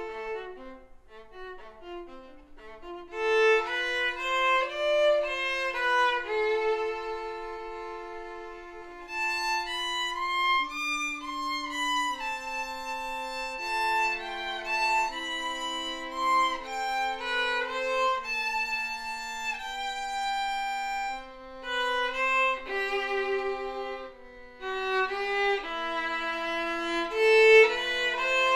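A violin duet: two bowed parts play sustained notes together, one line above the other. It starts soft and grows louder about three seconds in.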